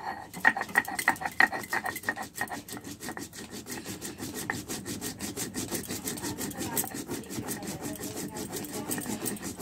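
Shil-nora grinding stone being rubbed back and forth over a pitted stone slab, crushing ginger and cumin seeds into paste: rhythmic gritty scraping of stone on stone, about four strokes a second, sharper in the first couple of seconds and then steadier.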